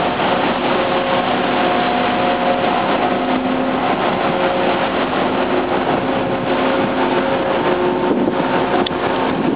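Steady rushing of churning propeller wash and ship machinery, with faint steady hums that come and go.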